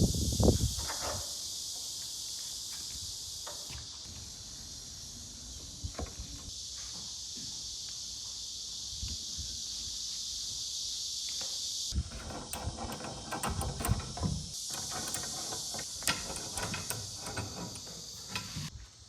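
Steady high-pitched drone of an insect chorus. About twelve seconds in the sound changes abruptly to scattered knocks and clicks.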